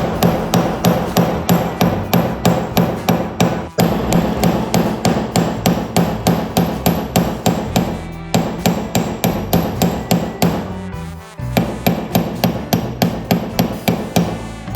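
A hammer striking rivet pins to flatten them: rapid, even blows of metal on metal, about four a second. The blows stop briefly a few times, longest about eleven seconds in.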